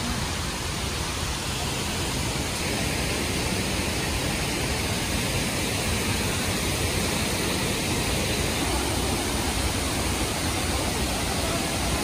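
Krang Shuri waterfall's falling water rushing steadily, an even noise without breaks.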